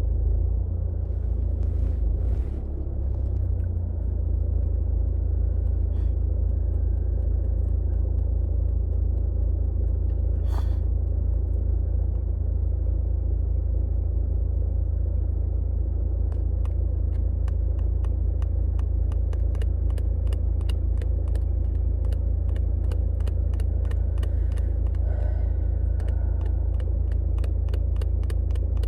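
Car engine idling, a steady low rumble heard from inside the cabin while the car waits in a queue of traffic. From about halfway through, a run of sharp, evenly spaced ticks, about two a second, joins it.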